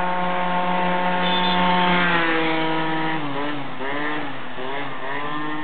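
Gilera Runner scooter with a Yasuni exhaust passing at full throttle. Its high, steady engine note drops in pitch about two seconds in as it goes by, then wavers up and down as it pulls away.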